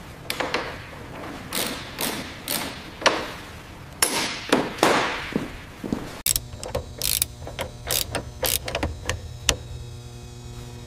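Irregular metallic clicks and clanks of hand tools being worked, like a ratchet wrench, each with a short ring. About six seconds in, the sound changes abruptly to a steady low hum with lighter clicks over it.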